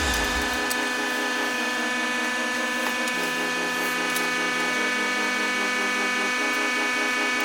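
Hydraulic press running with a steady mechanical whine and hum made of several held tones, its low note shifting slightly about three seconds in and again near the end.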